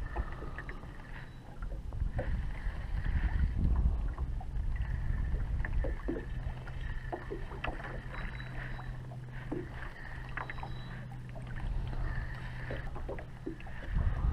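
Small fishing boat under way on a lake: water and low rumble against the hull with scattered small knocks, and a steady low motor hum that comes in about six seconds in.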